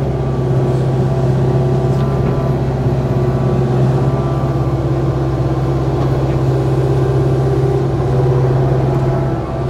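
Kubota KX-057-4 excavator's diesel engine running steadily, a low hum that holds the same pitch and level throughout.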